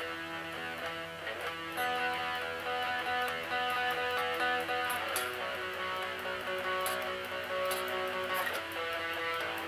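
Electric guitar played through a Fender G-DEC practice amp: sustained chords changing every second or two, with several overdubbed guitar layers ringing over one another.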